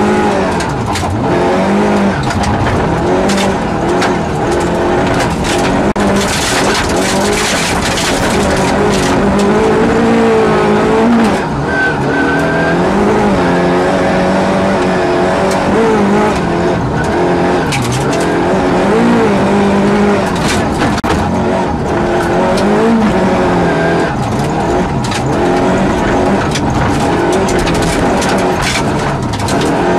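Rally car engine heard from inside the cabin, revving up and dropping back again and again as it is driven hard through the gears, with many sharp knocks of gravel and bumps striking the car's body.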